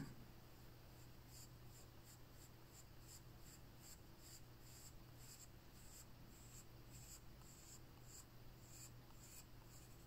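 Faint scratching of a black Faber-Castell Polychromos coloured pencil on drawing paper, in short strokes about two to three a second, as an outline is drawn with a blunt, unsharpened tip.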